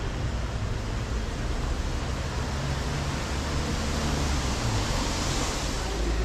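Steady outdoor background noise: a continuous even rush with a low rumble underneath.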